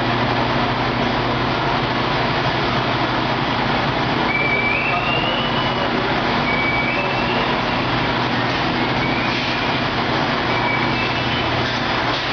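Semi-automatic water-jug washing and sterilizing machine running: a steady motor hum under a constant rushing noise.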